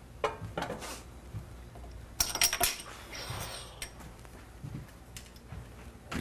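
A person gathering belongings and walking off: scattered knocks and handling noises, with a brief, loud metallic jingle a little over two seconds in.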